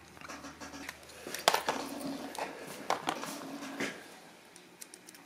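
Clicks and taps of small metal parts as a small-engine carburetor is handled and its anti-backfire device is taken off by hand. The sharpest clicks come about one and a half, three and four seconds in.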